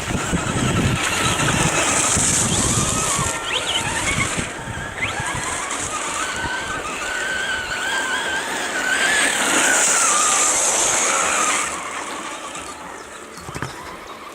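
Team Associated SC8e 1:8 electric short-course truck driving under its Hot Bodies Lightning brushless motor. There is a high electric whine that swells with throttle in two bursts, one early and one near 10 seconds, over tyre and ground noise. It falls off near the end.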